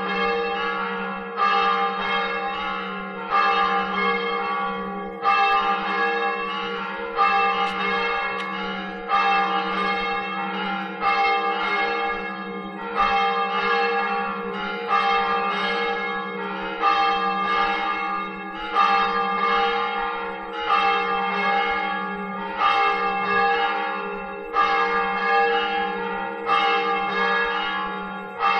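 Church tower bells ringing to call people to Mass: a regular stroke about every two seconds, with weaker strokes between, each ringing on into the next over a steady low hum.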